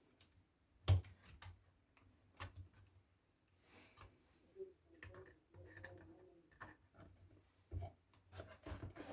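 Faint, scattered clicks and light knocks from hands handling the plastic parts of an electric kettle during repair. The sharpest knock comes about a second in, with a few more near the end.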